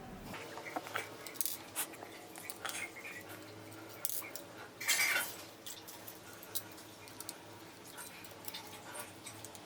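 Small screws being undone from a laptop hard drive's metal side brackets with a small screwdriver: light metal clicks and taps, with one louder rasping scrape about five seconds in.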